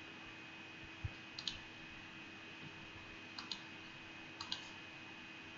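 Faint computer mouse clicks, a few of them in quick pairs, over a low steady hum.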